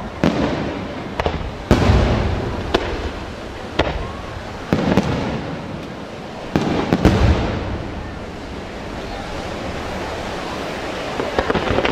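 Aerial firework shells bursting: sharp bangs about once a second, each followed by a rumbling echo. From about eight seconds in the bangs stop and a lower rumble carries on, with a few small crackles near the end.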